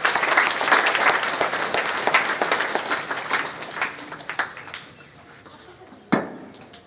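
An audience clapping; the applause fades away over about five seconds. About six seconds in comes a single thump as the microphone on its stand is handled.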